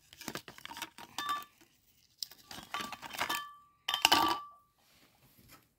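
Candy cane Christmas ornaments clinking against each other and other hard, glassy items as they are handled and set down, in three bursts of clinks with brief ringing tones; the loudest comes about four seconds in.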